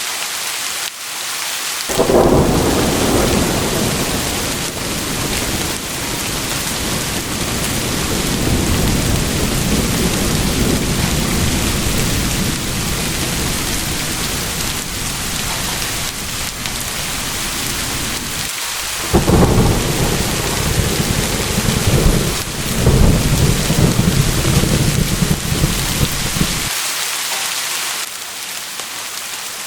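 Steady rain with rolling thunder. A long low roll begins about two seconds in, breaks off briefly, then a second, louder roll follows and dies away a few seconds before the end, leaving only the hiss of rain.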